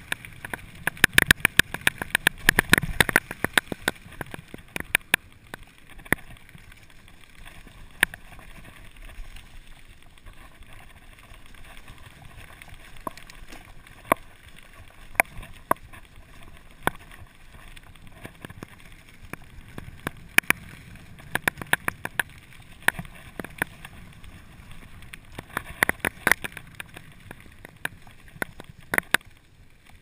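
Mountain bike riding down a rough gravel forest trail: a steady rumble of tyres on gravel with many sharp rattles and knocks from the bike jolting over bumps. The rattling is thickest in the first few seconds and again through the last third.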